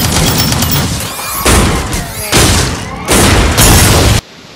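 Battle sound effects: a run of loud explosion-like booms and blasts, a new one about every second, cutting off suddenly near the end.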